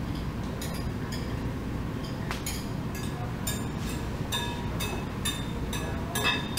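A utensil clinking repeatedly against a glass mixing bowl while green beans are tossed in it. The clinks are short and ringing, irregular, and come more often in the second half.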